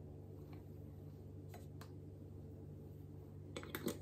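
Faint clicks and taps of metal screw bands and lids on glass canning jars as they are screwed on and handled, over a steady low hum. There is a quick cluster of louder clicks near the end.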